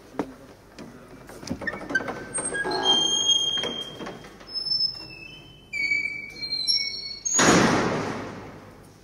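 A wooden chair and a chalkboard on a pivoting stand are handled as sound objects. There are scattered knocks and a string of short, high squeaks at different pitches, then a loud rushing noise about seven seconds in that fades away.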